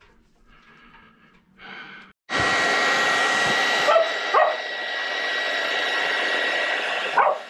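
Hand-held hair dryer blowing steadily with a thin whine, held against a fibreglass boat hull to heat and soften the coating so it will peel. It starts abruptly about two seconds in and turns slightly duller a couple of seconds later.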